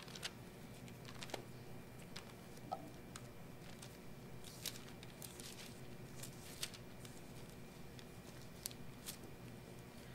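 Faint, irregular rustling and flicking of thin Bible pages being turned to find a passage, a dozen or so short crackles over a steady low room hum.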